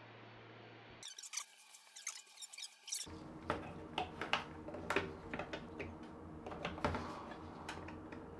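Plastic grille of a Panasonic WhisperFit bathroom vent fan being pushed up into its ceiling housing, its spring clips and plastic squeaking and clicking many times, over a low steady hum.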